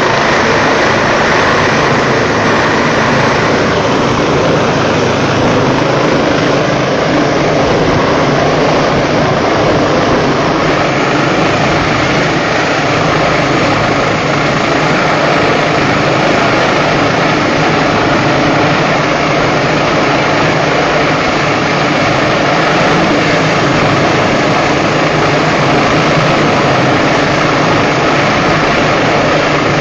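Rescue helicopter hovering close overhead to winch up a stretcher: its rotor and turbine make a loud, steady din.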